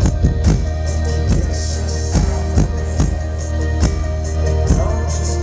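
Live band playing through a festival PA, heard from the crowd: a steady drum beat over a sustained low bass and held keyboard notes, with no vocals.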